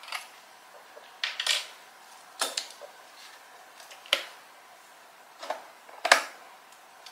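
Plastic body of a white Mofii Candy wireless keyboard being handled and turned over: a string of sharp plastic clicks and knocks about a second apart, the loudest near the end.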